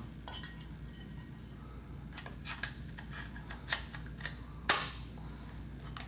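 Metal top casing of a media player's enclosure being fitted back onto its metal chassis: a scatter of light metallic clicks and clinks, the sharpest a little before five seconds in.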